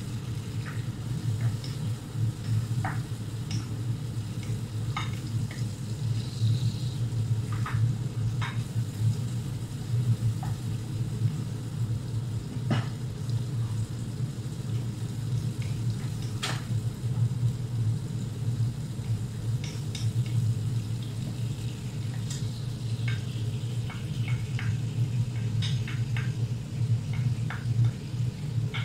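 Wooden spoon stirring ground beef and onion frying in a pot, with scattered light knocks of the spoon against the pot over a steady low hum.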